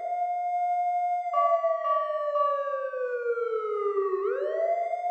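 A siren wailing: it holds a high pitch, glides slowly down, then winds back up about four seconds in. A higher steady tone sounds on and off alongside it from about a second in.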